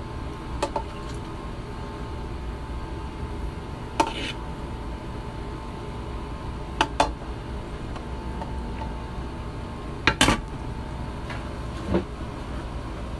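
A metal serving spoon clinking against a pot and plate as rice is scooped out: a handful of short, sharp clinks, a close pair midway and a quick cluster later, over a steady low hum.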